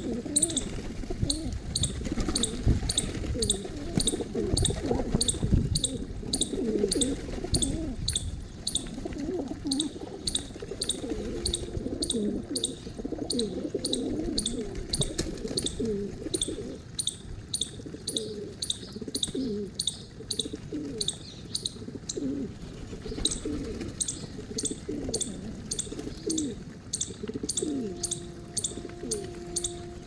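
A flock of pigeons cooing, many low throaty calls overlapping, while a high, sharp chirp repeats about twice a second.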